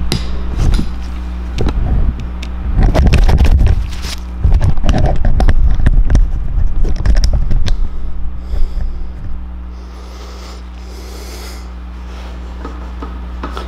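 Metal polish being rubbed by hand into an aluminium motorcycle engine cover with a paper towel: irregular scratchy rubbing and handling noises. They are loudest in the first nine seconds or so, then give way to a quieter steady low hum.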